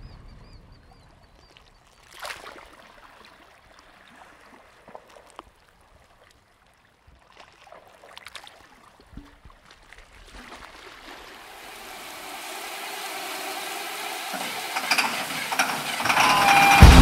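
Scattered faint knocks and clicks, then the engine of heavy logging machinery running, growing steadily louder over the last several seconds.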